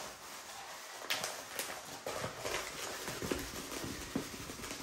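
Diamond painting canvas being rolled up by hand on a wooden table: rustling and crinkling of the canvas and its paper, with irregular light knocks and taps.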